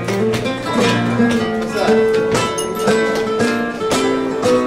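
Flamenco guitar playing a soleá passage of plucked notes and chords.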